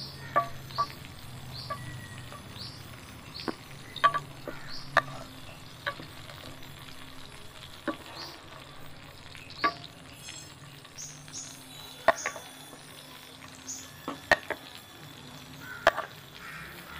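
Cauliflower steaks sizzling in oil and butter in a steel frying pan, with a wooden spatula knocking and scraping against the pan every second or so as they are basted. A faint high chirp repeats in the background.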